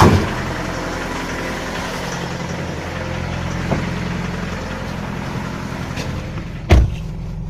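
Mitsubishi L200 pickup engine idling on a cold start, with the knock that comes at every cold morning start and goes away as the engine warms. A sharp knock sounds right at the start and a loud short thump near the end.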